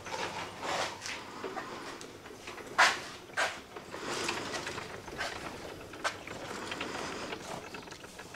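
A Yamaha Banshee quad being pushed by hand out of a shed onto grass, its engine off: scattered knocks, rattles and rustles from the rolling tyres and footsteps, with two louder knocks about three seconds in.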